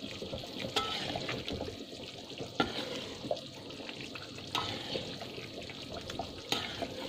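A spatula stirring rendang (beef in thick coconut milk) in a metal pan, with the steady hiss of the simmering sauce and a few light knocks of the spatula against the pan.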